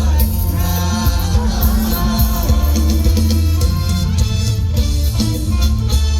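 Loud live Isan stage-band music: singing over guitar, heavy bass and drums.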